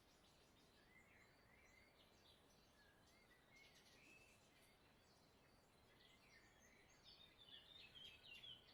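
Near silence with faint birds chirping, a string of short high calls that grows busier and a little louder near the end.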